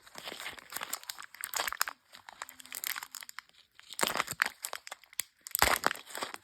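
Chocolate packaging crinkling and tearing close to the microphone, in irregular crackly bursts, loudest about four seconds in and again near the end.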